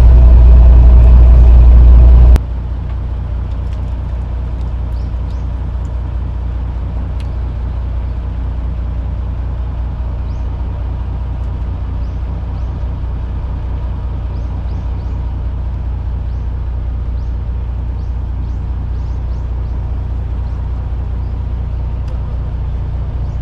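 Steady low engine hum aboard a small fishing boat, very loud for the first couple of seconds, then dropping sharply and running on evenly at a lower level.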